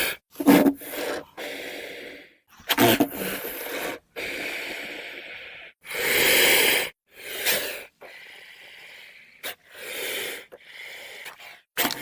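Edited creature sound effects: a string of short breathy hisses, wheezes and snorts, each separated by a brief cut to silence.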